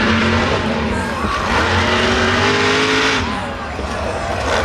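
Monster truck engine revving hard at steady high revs. About a second and a half in it climbs higher and holds, then drops back about three seconds in.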